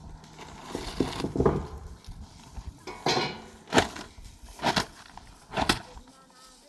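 A series of about six sharp knocks and clatters at uneven intervals, like hard objects or utensils being handled and set down.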